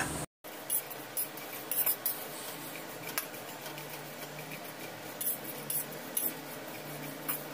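Metal spatula scraping and tapping in a steel kadai as dried Bombay duck pieces are dry-roasted and stirred, the dry pieces rattling; scattered short clicks and scrapes come every half second to a second.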